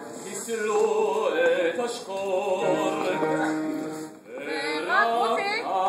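Opera singing: several voices holding long notes over a sustained chord. The singing breaks off briefly about four seconds in, then starts again.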